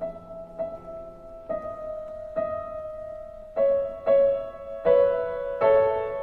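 Slow piano music: sustained chords struck about once a second, growing louder in the second half.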